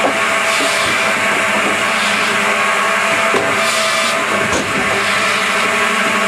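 DS-33 double-saw firewood processor running steadily, its two 700 mm stellite-tipped circular saw blades humming. A few louder, hissing passages and knocks come as the blades cut through the fed logs, the second of them near the end.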